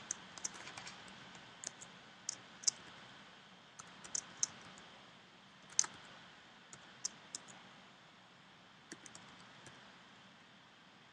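Computer keyboard being typed on: faint, irregular keystrokes in short runs with pauses of about a second between them.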